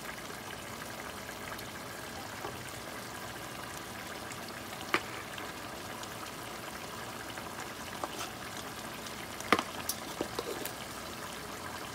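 Salted-fish sauce simmering in a metal pan on a gas burner: a steady sizzle, broken by a few sharp clicks, the loudest about nine and a half seconds in.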